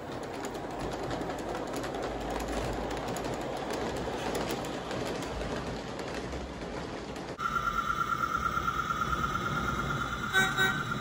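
G-scale LGB electric locomotive and passenger cars rolling past on the track: a rumble with rapid clicking of the wheels over the rail joints. About seven seconds in, this gives way abruptly to a steady, high, pulsing whine.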